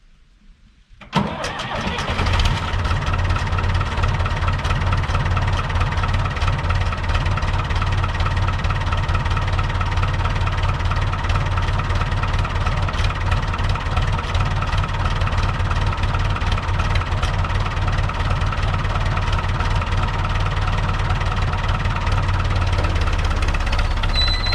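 Long 560 DT tractor engine starting about a second in, catching at once and then running steadily at idle.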